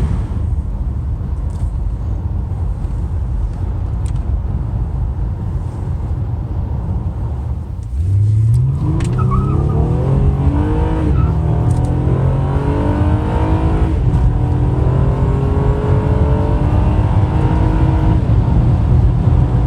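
A car driving, with steady engine and road rumble. About eight seconds in, the engine note rises sharply as the car accelerates, then keeps climbing slowly and holds a steady drone.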